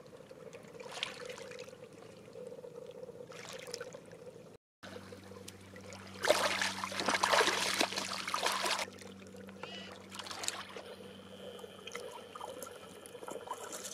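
Shallow seawater lapping and trickling among shoreline rocks, swelling louder for a few seconds past the middle.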